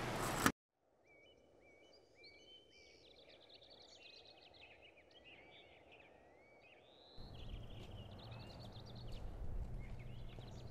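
A loud hiss-like noise cuts off with a sharp click about half a second in. Then several songbirds chirp and whistle in quick, varied calls over faint ambience. About seven seconds in, a low steady rumble, like wind, joins them.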